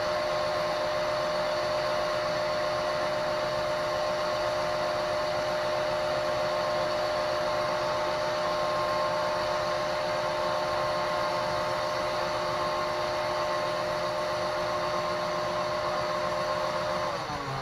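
John Deere combine harvester running while its unloading auger empties shelled corn into a truck: a steady mechanical hum with a constant high whine. Near the end the whine slides down in pitch.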